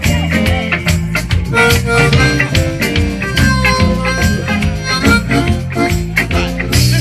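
Live blues jam: a harmonica played cupped against a microphone, its long held notes over electric guitar and a steady band beat.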